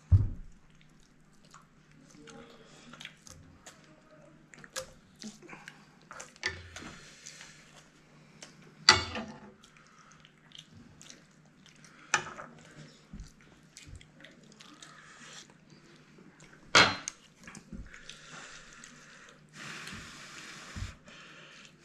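Chopsticks and a spoon clinking and knocking against a stainless steel frying pan and a ceramic bowl as noodle soup is served, with broth dripping between them. Light scattered clicks, with a few louder knocks.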